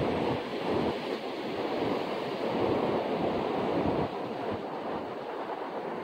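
Wind buffeting the microphone over the steady wash of surf on an open beach, a gusting rush of noise with no clear single events.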